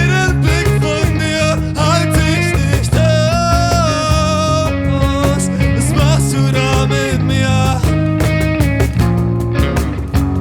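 Live acoustic music: a guitar strumming steadily, with a melody line gliding between notes and holding over it.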